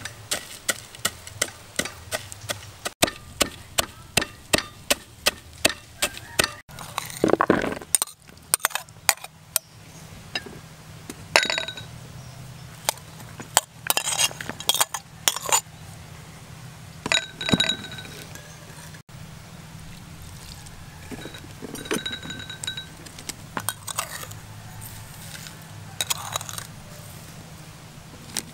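Wooden pestle pounding in a clay mortar, sharp strikes about two a second for the first six or seven seconds. After that, scattered clinks and clatters of a plate and spoon against a plastic bowl as ingredients are tipped in.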